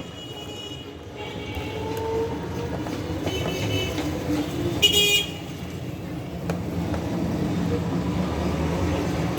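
Road traffic running steadily, with vehicle horns honking in several short toots, the loudest about five seconds in.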